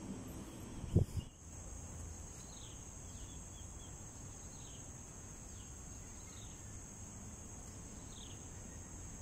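Steady high-pitched insect drone, with short falling chirps every second or so and a single sharp knock about a second in.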